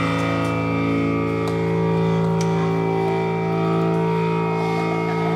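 Experimental music from invented string instruments: a dense drone of many steady held tones, with a couple of faint clicks.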